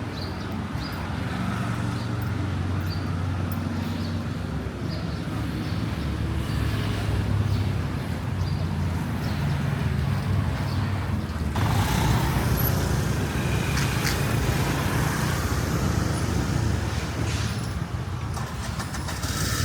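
City street traffic: vehicle engines running and passing in a steady hum of road noise, which thickens and grows a little louder about halfway through.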